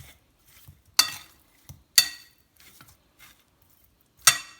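A utensil clinking against a mixing bowl while seasoned chicken drumsticks are stirred: three sharp, ringing clinks, about a second in, about two seconds in and near the end, with faint scraping and rubbing between.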